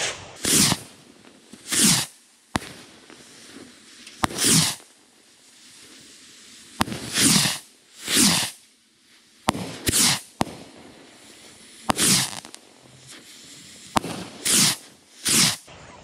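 Bottle rockets firing from a launch rack one after another: about nine short whooshes spaced a second or two apart, with sharp single pops in between.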